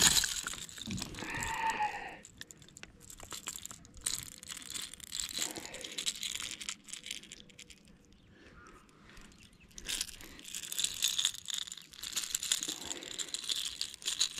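A small largemouth bass splashing as it is swung out of the water into a kayak, followed about a second in by a short pitched vocal sound. Then scattered clicks, rustling and crinkling as the fish is held and the topwater popper is worked out of its mouth, busier near the end.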